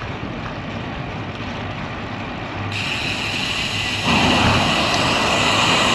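Steady wind and rolling noise of a road bike on a paved path, swelling louder about four seconds in as a motor vehicle passes on the road alongside.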